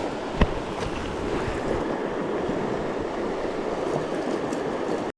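Mountain stream water rushing steadily, with a single sharp click about half a second in. The sound cuts off abruptly just before the end.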